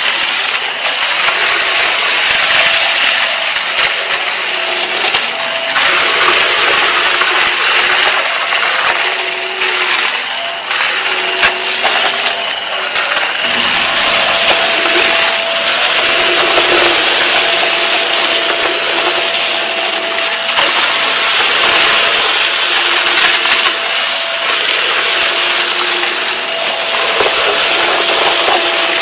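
Close-miked Hart stick vacuum running at steady speed, its motor humming under a constant crunching and rattling as it sucks up heaps of confetti and sequins from the carpet.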